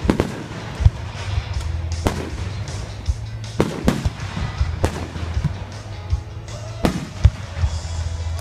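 Fireworks going off: about six sharp, irregularly spaced bangs with smaller pops between them, over background music.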